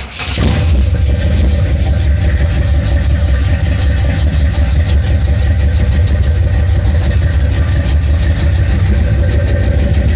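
Buick 455 Stage 1 V8 catching just after the start, then idling loud and steady. This is the bad engine noise that the replaced rocker arm retainer has not cured, which others suspect is a worn front cam bearing.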